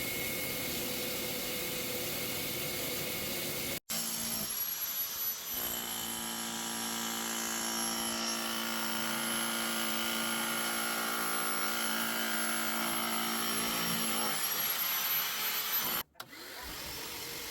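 Work clips joined by abrupt cuts. In the middle an electric power tool's motor runs at a steady, unchanging pitch for several seconds; before it and after it there is other steady machine noise.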